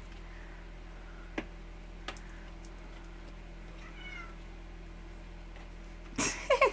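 Kittens: a faint high mew about four seconds in, then a loud meow near the end. Two light clicks come earlier.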